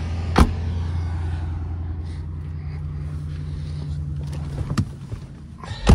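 Car engine idling with a steady low hum, a sharp click about half a second in, and a car door shutting with a loud thump near the end.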